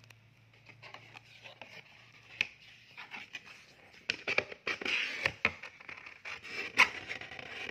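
Paperboard cake box opened by hand: flaps unfolded and slid apart with scraping and rubbing of cardboard, broken by sharp taps and clicks, the loudest one near the end.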